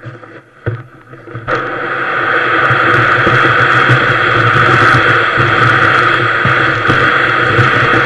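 Kayak hull sliding over snow on a downhill sled run: a loud, steady scraping rush that starts suddenly about a second and a half in and swells over the next second, after a single knock just before it.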